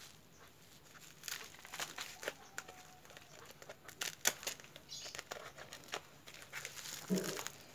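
Bubble wrap and plastic packaging crinkling and rustling as a wrapped package is turned in the hands, with irregular scattered crackles.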